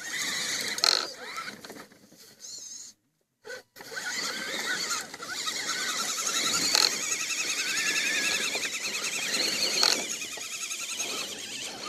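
Electric motor and gear drive of a radio-controlled crawler whining, its high pitch wavering up and down with the throttle. The sound drops out briefly about three seconds in.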